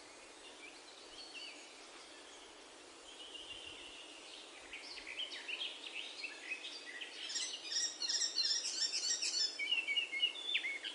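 Small birds chirping and twittering over a steady background hiss, sparse at first and growing busier from about four seconds in.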